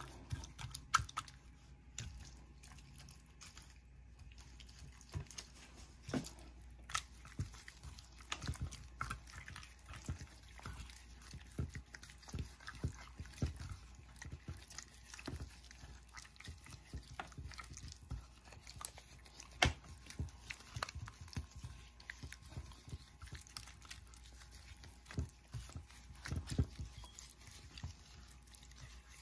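Gloved hand working a wet, oily seasoning paste into a whole fish in a glass baking dish: faint, irregular wet smacks and clicks, a few louder ones scattered through.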